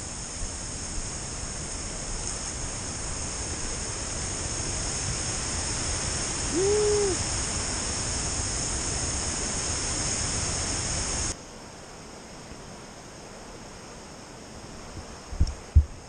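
Rushing waterfall water, slowly growing louder, under a steady high insect buzz, with one short rising-and-falling hoot about seven seconds in. A little after eleven seconds it cuts off abruptly to a quieter river rush, with a few thumps near the end.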